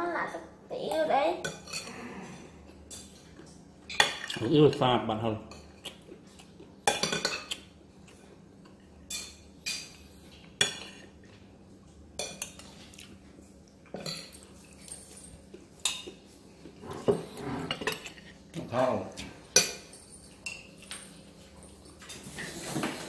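Metal spoon clinking and scraping against ceramic plates as stir-fried minced beef and pork is spooned onto rice, in irregular short clinks and taps.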